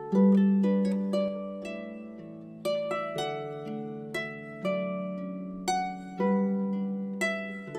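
Background instrumental music: plucked-string notes, about two a second, each fading away, over a held low note.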